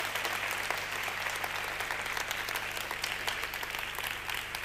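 Audience applauding, many hands clapping at once and thinning a little toward the end.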